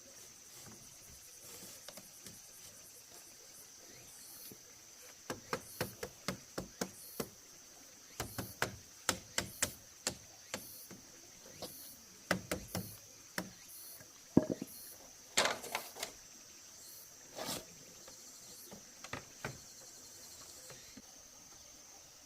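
A run of irregular sharp knocks and clicks, several a second in bunches, with the loudest strike about two-thirds of the way through. A steady high insect drone runs underneath.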